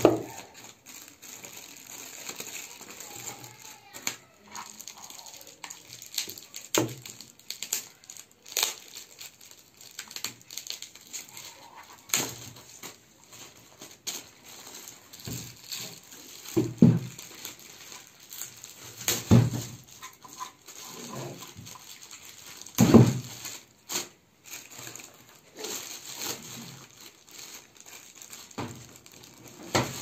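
Thin plastic bags crinkling and rustling as they are pulled off studio monitor speakers, with scattered clicks and several dull thumps from the speaker cabinets being handled, the loudest about two thirds of the way through.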